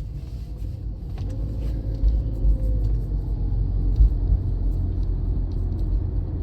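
Low, steady rumble of a car in motion.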